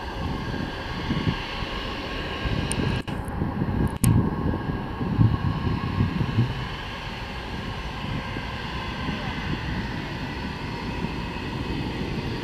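Jet engines of an Airbus narrow-body airliner running at low taxi power: a steady whine of several level tones over a low rumble. Wind gusts on the microphone, and two brief dropouts about three and four seconds in.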